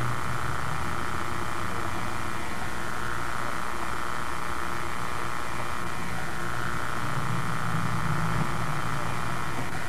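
Steady background hiss with a low hum and rumble and faint steady tones, the camcorder audio track's own noise on a dark recording. The low rumble swells slightly about seven to eight seconds in.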